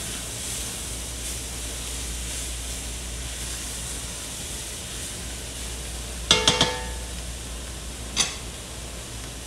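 Bell peppers and onions sizzling steadily as they sauté in an enameled cast-iron Dutch oven while being stirred. About six seconds in, a utensil clinks three times in quick succession against the pot with a brief ringing tone, and there is one more sharp knock about two seconds later.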